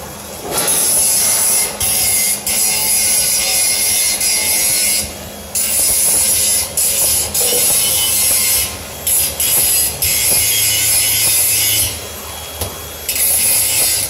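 Makita DGA404 18V cordless 100 mm angle grinder with its abrasive disc grinding into steel bar, starting about half a second in: a loud, high hiss broken by several short pauses where the disc comes off the metal, the longest about a second before the end.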